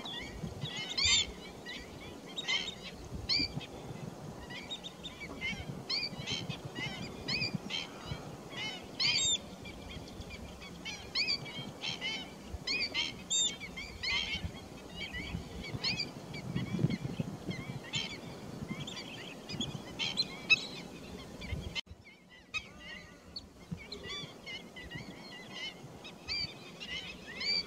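Many short bird calls repeating rapidly and irregularly, several a second at times, over a faint steady background, briefly cut off about three quarters of the way through.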